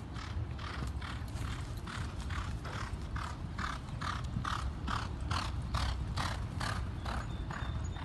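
Hoofbeats of a horse on a dirt racetrack in an even rhythm of about three a second. They grow louder as the horse passes close, around five to seven seconds in, and ease off near the end, over a steady low rumble.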